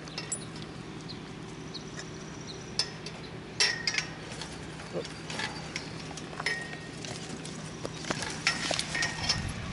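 Scattered light clicks and brief metallic clinks from two pit bulls' collars and tags as they move and play, over a faint steady hum.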